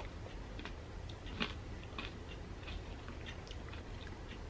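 Faint mouth sounds and small scattered clicks of a person sipping a drink through a straw from a plastic cup, with one slightly louder click about a second and a half in.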